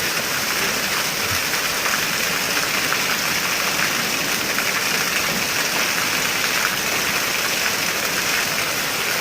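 Heavy rain pouring down, a steady, even hiss of rain on surfaces.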